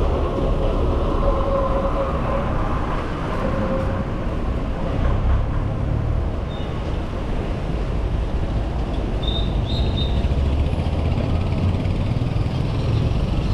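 Wind buffeting the microphone of a handlebar-mounted camera on a moving bicycle, mixed with the steady rumble of surrounding motor traffic. A steady engine-like hum is heard in the first few seconds, and a few short high-pitched chirps come about ten seconds in.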